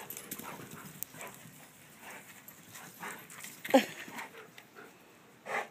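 German Shepherd Dog giving one short yelp while running after a ball, about three and a half seconds in, among fainter scattered noises of its movement and breathing.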